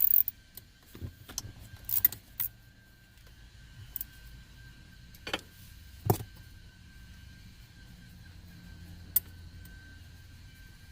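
Scattered sharp metallic clicks and clinks of a hand tool and loose bolts as T30 Torx bolts are taken out under a car's dashboard, a handful of irregular knocks with quiet between them.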